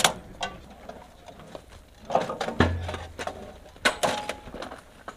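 Scattered sharp knocks and metal clanks from the crew handling an M777 howitzer and its gear between rounds, irregular and short, the loudest about two and a half seconds in.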